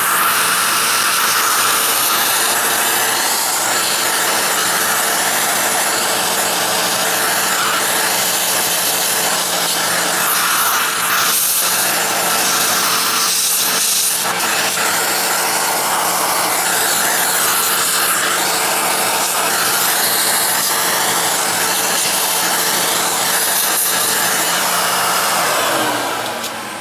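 Vacuum cleaner running steadily, its hose sucking dust out of the inside of an open VCR, with a steady motor hum under a loud rushing of air. The sound wavers briefly a couple of times in the middle and dies away near the end.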